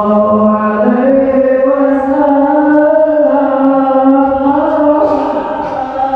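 A man's voice chanting Islamic devotional verses (sholawat) in long, slowly shifting held notes.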